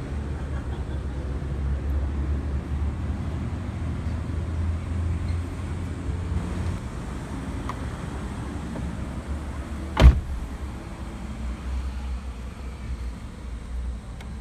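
A steady low rumble in a small van's cabin, with one sharp click about ten seconds in, the loudest moment.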